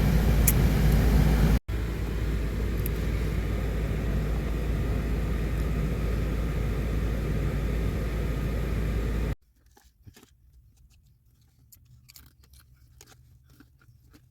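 Steady low rumbling noise inside a minivan that stops abruptly about nine seconds in, leaving a quiet stretch of faint scattered crunching clicks.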